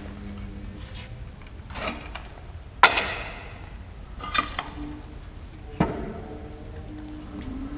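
Four sharp knocks about a second or so apart, the second one the loudest with a short ringing tail, over a low steady rumble.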